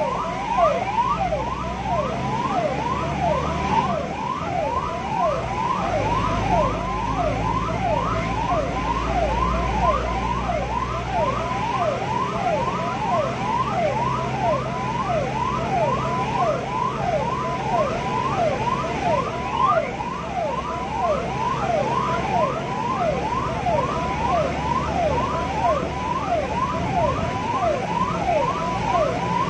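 Ambulance's electronic siren in a fast yelp, sweeping up and down a few times a second without a break. Engine and road rumble run underneath.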